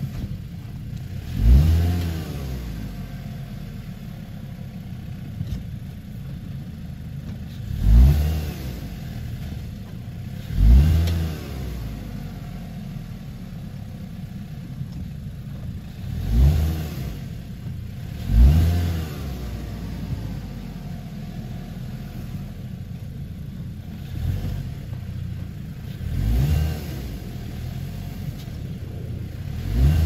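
Mazda6 sedan's engine revving in about eight short bursts, each rising and falling in pitch, with a steady idle between them, as the car tries to drive out of deep snow.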